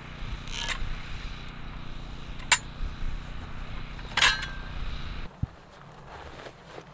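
Sharp metal clanks from a red high-lift farm jack working a steel T-post, three in all, the last one ringing briefly. Under them runs a steady low mechanical hum that stops about five seconds in.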